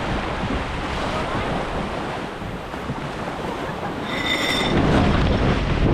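Wind buffeting the microphone and water rushing along the hull of a J109 sailing yacht running downwind through waves. A short high-pitched beep sounds about four seconds in, and the water wash swells near the end.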